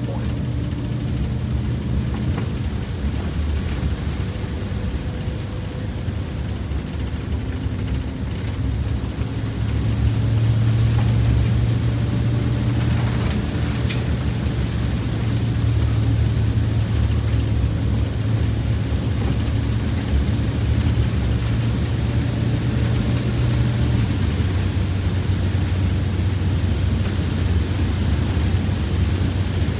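Detroit Diesel 8V92TA two-stroke turbocharged V8 diesel pulling the bus at road speed, heard from inside the driver's cab along with road noise. The engine is freshly rebuilt with four new pistons and liners. Its steady note grows louder about ten seconds in and drops slightly lower about twenty-four seconds in.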